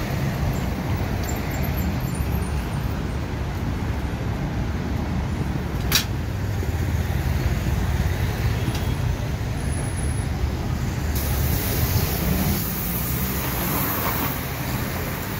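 Steady low motor-vehicle rumble, with a single sharp click about six seconds in and a higher hiss joining from about eleven seconds on.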